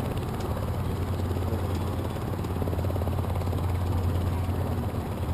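P-51 Mustang's Merlin V-12 piston engine running at idle, a steady low fast-pulsing drone.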